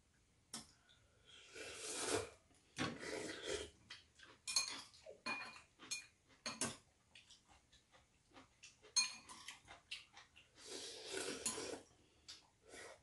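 Metal chopsticks clicking and clinking against bowls and the pot, with three longer stretches of noodle slurping, about two seconds in, three seconds in and near the end.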